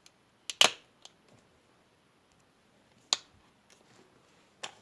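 A few sharp clicks and knocks, a double one about half a second in and single ones about a second in, just after three seconds and near the end, from the paint bottle and bowl being handled while colour is added to the slime mixture.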